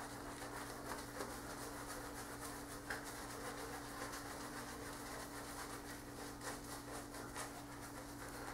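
Boar-bristle shaving brush lathering a stubbled face: faint, quick scratchy rubbing strokes, over a steady low hum.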